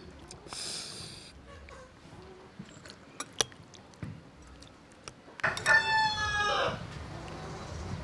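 A rooster crowing once, a call of about a second and a half starting about five and a half seconds in; before it, a few light clicks.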